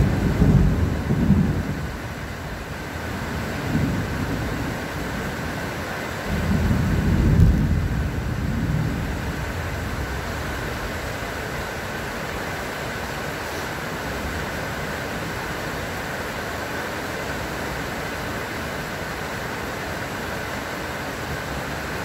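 Steady rain falling, with thunder rumbling over it: one burst at the start, a weaker one about four seconds in, and a longer, louder roll from about six to nine seconds.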